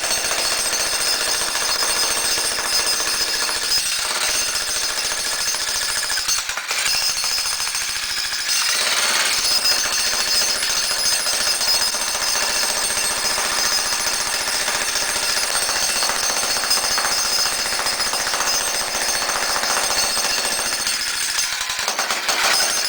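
Electric jackhammer running steadily, hammering its chisel into a concrete floor slab, with a brief let-up about six seconds in.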